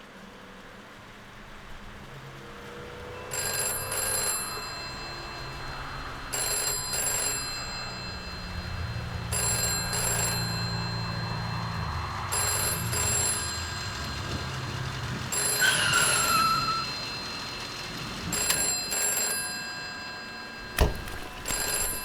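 Telephone ringing in bursts about every three seconds, each burst a double ring, over a low drone. A sharp click comes near the end.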